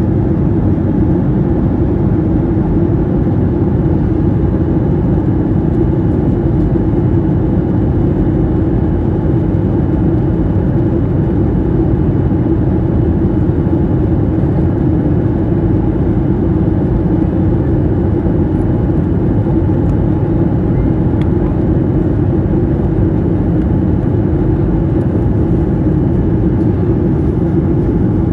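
Cabin noise of a jet airliner in flight: engines and rushing air making a steady, even, low rush that does not change.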